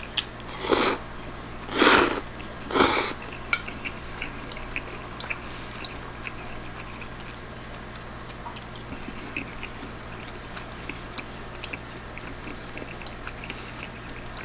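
Three loud slurps of spaghetti in quick succession, about a second apart, then light clicks and scrapes of a fork on a plate.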